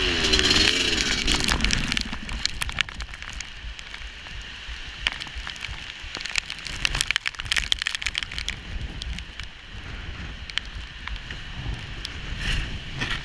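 Dirt bike engine revving with a rising and falling pitch for about the first two seconds, then dropping to a low rumble as the bike rolls down a wet, muddy trail, with steady crackling and sharp clicks throughout.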